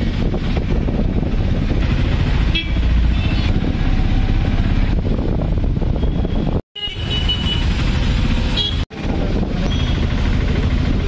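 Auto-rickshaw engine running as it drives through traffic, heard from inside the open cabin with road and wind noise. The sound breaks off for a moment twice.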